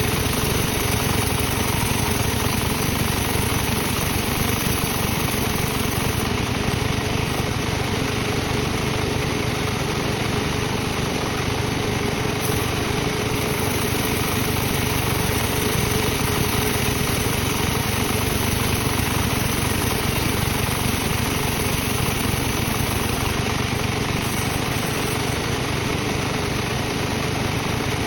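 Sawmill machinery running steadily, a constant engine-like drone with no breaks or changes in level.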